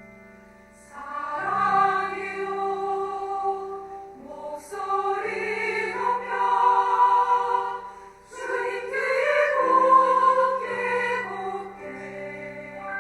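Women's choir singing a hymn with piano accompaniment, in three phrases that swell and ease off, the last fading out near the end.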